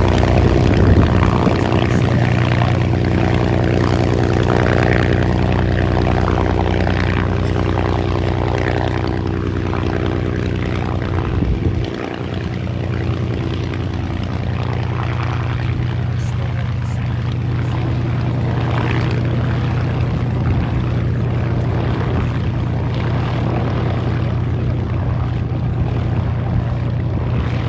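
P-51D Mustang's Packard Merlin V-12 engine running steadily, its propeller turning, with a brief drop in level about twelve seconds in.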